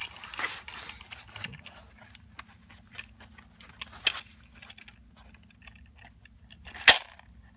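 A 50-round 9 mm drum magazine's plastic casing being handled, giving scattered clicks and knocks. It rattles in the first second, clicks sharply about four seconds in, and knocks loudest near the end.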